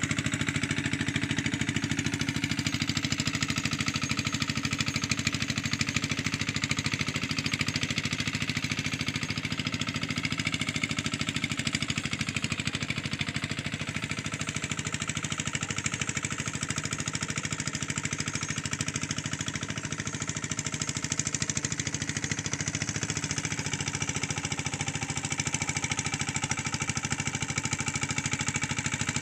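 Engine of a two-wheeled hand tractor running steadily under load as it works a flooded rice paddy, with an even, unbroken firing pulse.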